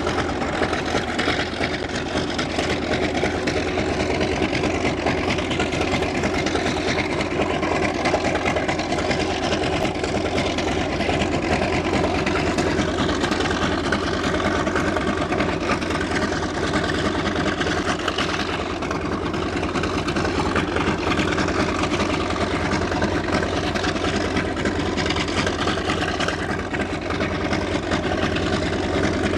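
TBM-3E Avenger's Wright R-2600 Cyclone 14-cylinder radial engine idling steadily, its propeller turning.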